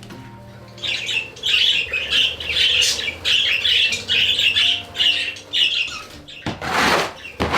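A flock of budgerigars chattering and warbling in a stream of quick, high chirps. About six and a half seconds in, a brief rush of noise stands out above the chatter.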